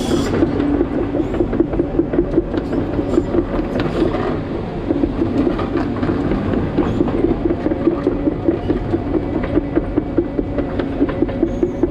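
Hidromek 140LC crawler excavator's diesel engine running under work, with a rapid, even clatter of about three to four knocks a second over a low rumble.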